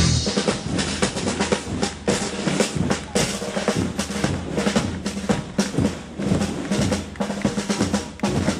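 Snare and bass drums beating a marching cadence, with rolls.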